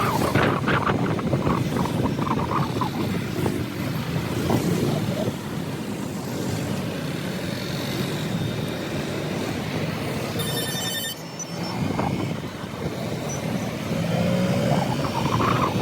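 A motor vehicle running along a road, its engine rising and falling in pitch over steady road and wind noise.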